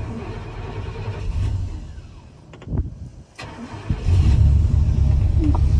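A 1997 Chevrolet C3500's 5.7-litre V8 being cranked by its starter and then firing about four seconds in, settling into a loud, steady run. This is its first start after sitting unused for months with the battery unhooked.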